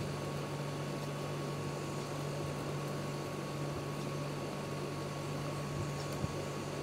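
Steady low hum with an even hiss, the background noise of the room, with a single faint tick about six seconds in.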